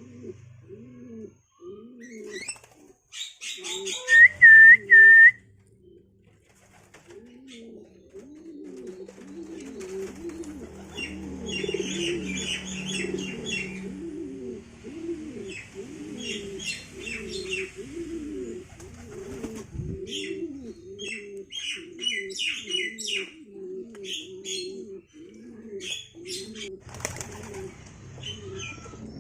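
Domestic pigeons cooing over and over, with chirping calls from Javan mynas: a few very loud ones about four seconds in, then many more from about ten seconds on. A brief flutter of wings near the end.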